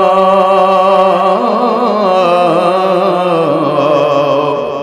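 A man singing a Bengali Islamic gojol, drawing the last syllable of a line out into one long held note. The note shifts pitch a few times and fades near the end.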